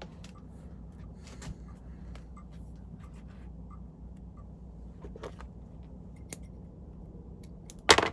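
Light clicks and rustles of fingers handling feathers and thread on a hook clamped in a fly-tying vise. A single much louder sharp click comes near the end.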